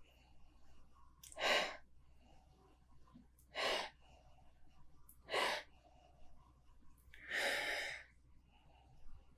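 A person sniffing a glass of beer to take in its aroma: four separate sniffs about two seconds apart, the last one longer.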